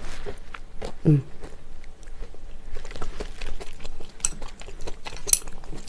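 Small clicks and taps of chopsticks and tableware against plates and bowls as food is handled, with a sharper click about five seconds in.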